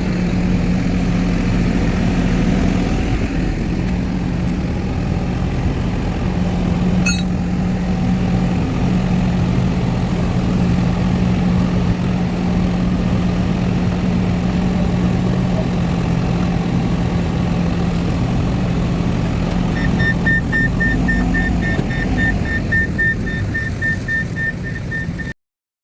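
A vehicle engine running steadily, with a single sharp click about seven seconds in. About twenty seconds in, a repeated high beeping starts alongside it, like a warning beeper on machinery. The sound cuts off suddenly near the end.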